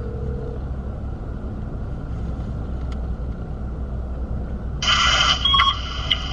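Steady low rumble of a car on the move, heard from inside the cabin. About five seconds in, a brighter, sharper sound with a few steady tones starts over it.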